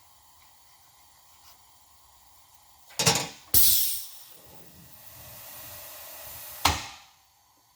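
A sharp burst of air hiss about three and a half seconds in settles into a steadier hiss, then ends with a short final blast and cuts off. The sound is a compressed-air blow gun clearing cuttings off the machined heads.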